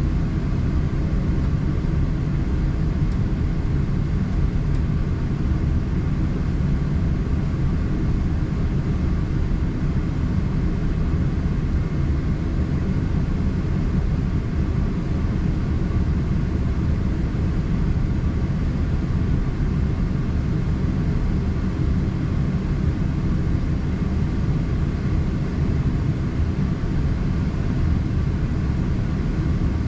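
Steady low rumble inside the cabin of a Boeing 777-300ER as it taxis, its GE90 engines running near idle.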